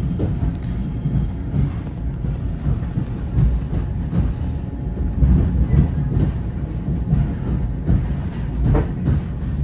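Ride noise of an NJ Transit Main Line push-pull commuter train in motion, heard from on board: a steady low rumble from the wheels and running gear, with scattered short knocks along the way.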